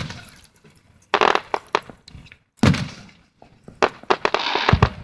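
Fireworks going off: groups of sharp bangs about a second in, near the middle, and toward the end, the last group with a crackling hiss and a deep boom just before the end.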